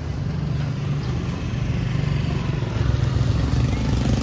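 An engine running steadily with a low hum, growing a little louder near the end.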